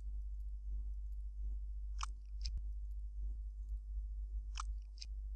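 Low steady hum with a few faint, short clicks: two about two seconds in and two more near the end. The rivet gun itself is not heard.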